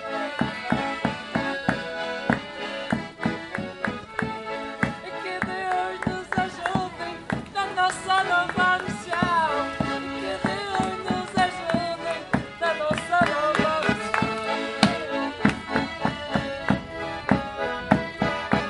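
Accordion playing a lively traditional folk dance tune live, with a quick, steady beat.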